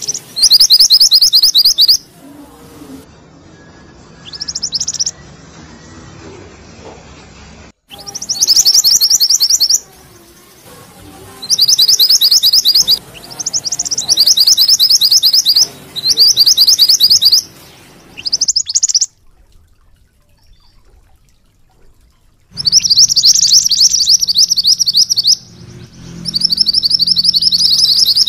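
Yellow minivet (mantenan kuning) singing its rolling trill: bouts of rapid, high-pitched repeated notes lasting one to three seconds each, broken by short pauses and one longer pause past the middle.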